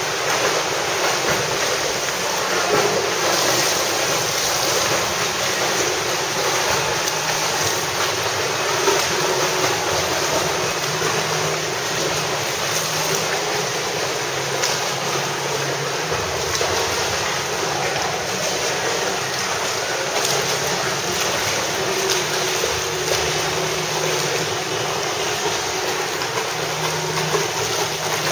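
Swimmers splashing as they swim front crawl in an indoor pool: a steady wash of churning water.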